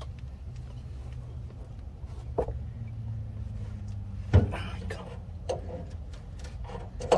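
Adjustable wrench clicking and knocking against a stiff diesel-tank drain valve as it is forced: a light click about two seconds in and a sharp metallic knock a little past the middle, followed by a few smaller knocks, over a steady low rumble.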